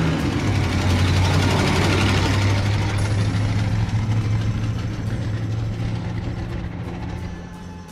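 1947 Ford pickup's flathead V8 running as the truck drives past at low speed, loudest as it passes close and then fading slowly as it pulls away.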